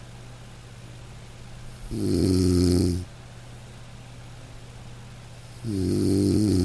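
A sleeping dog snoring: two drawn-out snores about a second long, the second starting a little under four seconds after the first, over a steady hiss of light rain.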